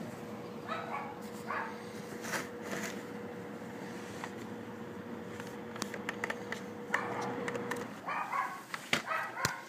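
Dog yapping: two short yaps about a second in, then a quick run of repeated yaps in the last three seconds.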